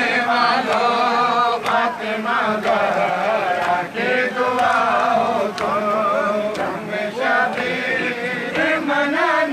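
A group of men singing an Urdu devotional dua together, many overlapping voices in a chant-like unison refrain.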